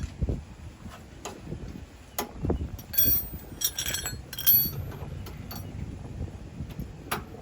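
Metal hand tools clinking and knocking against the truck's sway bar hardware, with a run of bright ringing clinks in the middle.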